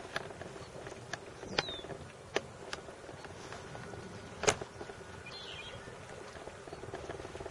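Lakeshore outdoor ambience: a steady soft hiss with scattered sharp ticks, the loudest about four and a half seconds in, and a brief high chirp a little after five seconds.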